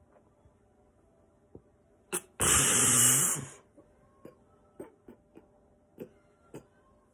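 A single loud, cough-like burst of breath from a man, about a second long and a couple of seconds in, with faint mouth and body clicks before and after.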